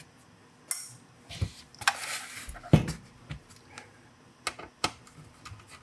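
Small Phillips screwdriver working the tiny screws out of a car radio's faceplate: scattered light clicks, a short scrape and a couple of dull knocks of metal and plastic being handled.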